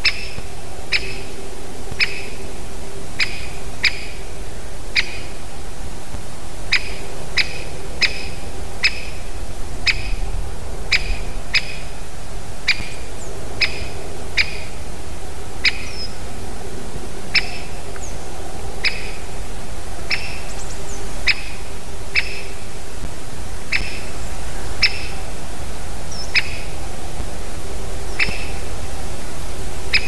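Great spotted woodpecker giving its short, sharp single 'kik' calls over and over, about one a second at an uneven pace.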